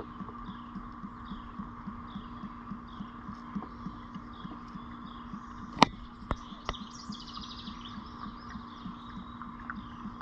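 Motor oil glugging out of a quart bottle into a funnel in an even, repeating rhythm, over a steady hum. One sharp knock comes about halfway through, followed by a couple of lighter clicks and a brief rattle.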